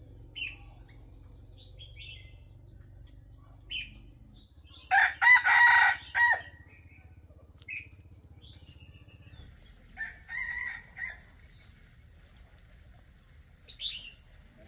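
Rooster crowing twice: a loud crow about five seconds in and a weaker one about ten seconds in. Short high bird chirps come and go between them.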